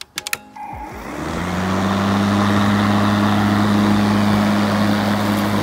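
A Craftsman 20-inch cordless battery lawn mower: a few clicks as it is handled, then its electric motor and blade spin up about a second in and run on with a steady hum over a wash of air noise.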